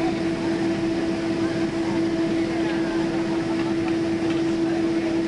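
Steady cabin noise inside a Boeing 777 just after landing: constant engine and airflow noise with an even hum.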